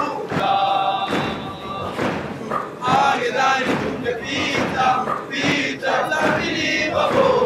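Choir of schoolboys singing a Swahili song, many male voices together.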